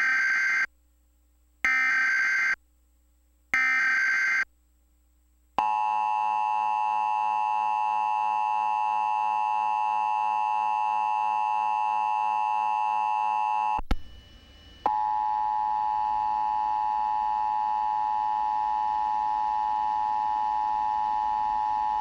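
Emergency Alert System broadcast signal: three short, shrill data bursts of the SAME header about a second apart, then the EAS two-tone attention signal held steady for about eight seconds. After a short break it resumes as a steady tone.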